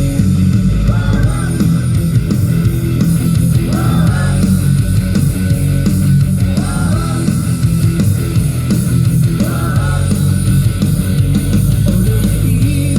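Loud rock music with electric guitar over a heavy bass, its melodic phrase coming back about every three seconds.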